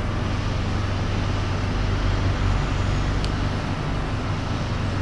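Steady low rumble and hiss of background room noise, with a faint single click a little over three seconds in.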